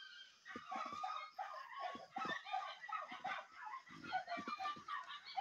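Dogs barking and yipping, a run of short calls one after another.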